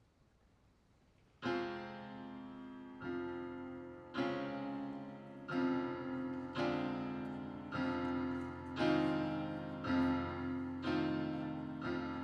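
Solo electronic piano keyboard playing slow, heavy chords, each left to ring, struck about every second and growing louder. The chords begin about a second and a half in, after near silence.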